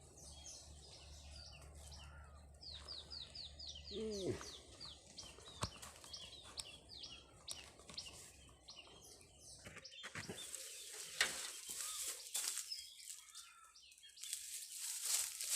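Small birds chirping and singing, including a rapid run of falling chirps about three seconds in. A louder high crackling hiss comes in over the last few seconds.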